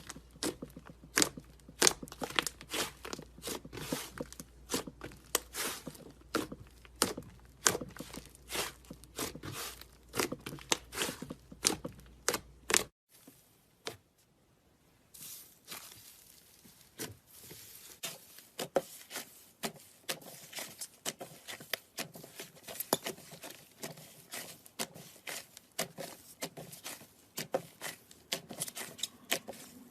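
Slime being squeezed and stretched by hand, making rapid, irregular sticky clicks and pops. The sound drops out briefly about halfway through, then resumes.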